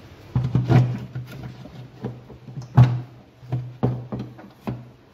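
Jet ski fuel tank being worked out of the hull's front compartment: a series of hollow knocks and bumps against the hull, the loudest a little under three seconds in.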